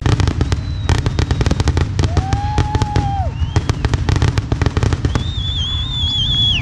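Fireworks finale: a fast barrage of aerial shell bursts, many bangs a second, over a continuous low rumble. Near the end a long, high, wavering whistle starts up over the bangs.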